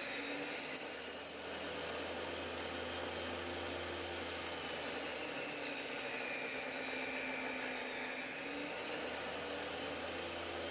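Table saw running, its blade cutting a half-inch-deep groove along a wooden board in repeated passes. The motor's whine sags slightly in pitch as the blade bites into the wood, then recovers.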